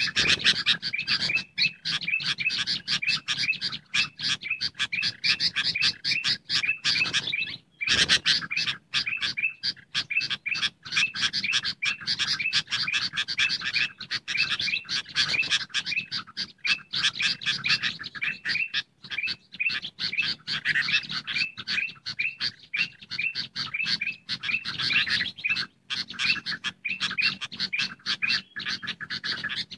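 Bird-lure recording of bulbul calls: a noisy chorus of sooty-headed bulbuls mixed with ruby-throated bulbul calls, a dense, unbroken stream of quick chirps several a second, with one short break about eight seconds in.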